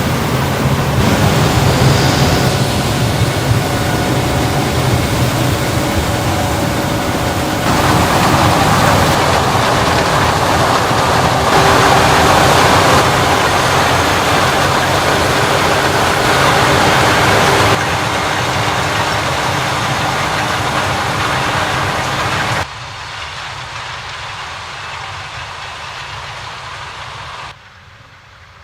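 Combine harvester and tractors running during a corn harvest: a loud, steady mechanical din with a low engine hum. The level jumps abruptly several times, loudest around the middle, and falls much quieter near the end.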